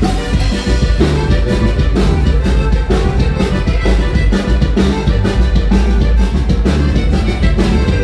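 Live norteño band with saxophone playing an instrumental passage of a huapango, with bass and drums keeping a steady beat.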